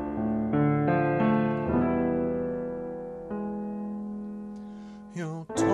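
Keyboard playing slow, sustained chords in a piano sound as a song intro. The chord changes a few times in the first few seconds, then the last chord is held and fades away; a voice comes in briefly near the end.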